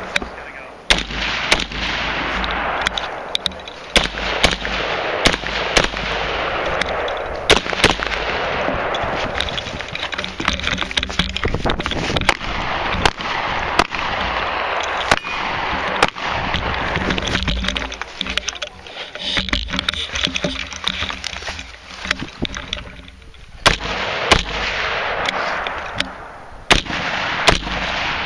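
AR-15 carbine firing a long string of single shots, about one a second, with a short lull about three quarters of the way through, over a steady rushing noise.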